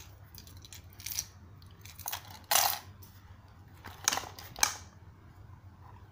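Hard plastic parts of a tackle box clicking and knocking as they are handled and fitted, with a louder clatter about two and a half seconds in and two shorter knocks near four and four and a half seconds.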